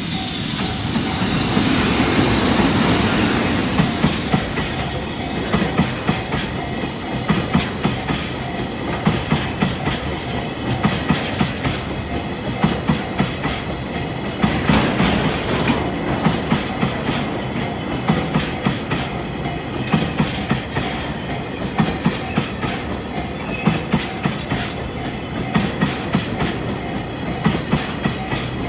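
Freight train of an EF65 electric locomotive and tank wagons passing. It is loudest in the first few seconds, then the wagons' wheels clack in a steady rhythm over the rail joints.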